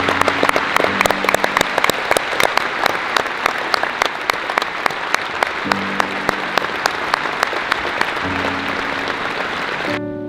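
Crowd applauding in a large arena, with many sharp claps close by, over soft background music. The applause starts and stops abruptly.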